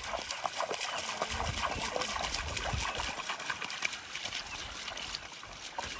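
Shallow water trickling and splashing, a steady hiss dotted with many small splashes.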